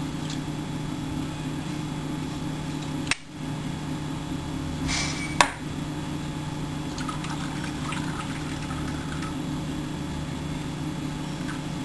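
Energy drink poured from a can into a glass, over a steady low electrical hum. Two sharp clicks or knocks come in the first half, the second and louder one about five and a half seconds in, just after a short hiss.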